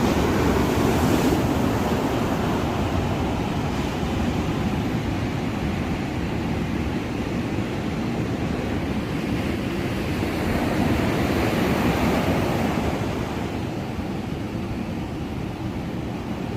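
Ocean surf washing on the shore, with wind on the microphone. The wash swells louder near the start and again about two-thirds of the way through.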